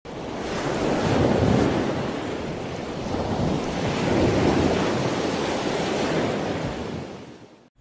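Ocean surf: waves washing in, swelling twice and fading out near the end.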